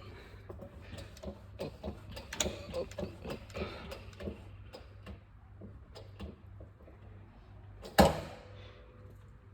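Workshop handling noise during engine work: a run of small clicks, taps and knocks of tools and metal parts, with one loud sharp knock that rings briefly about eight seconds in.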